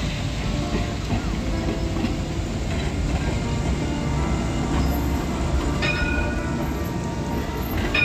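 A low-floor light-rail tram running past on its rails, a steady low rumble, with brief high-pitched tones about six seconds in and again near the end.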